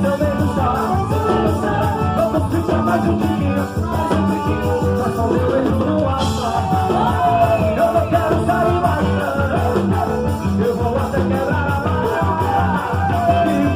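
Quadrilha junina dance music: a singer over a band with a steady, even beat.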